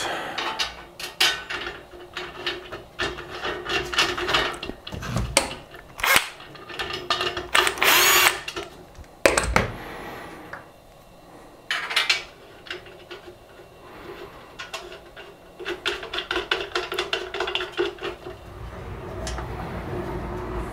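Aluminium extrusions, screws and metal plates of a 3D printer frame handled and fastened together: rapid clicks, knocks and clatter, a scrape about eight seconds in and a thump just after. Two stretches of a steady whir under fast clicking, near the start and again towards the end.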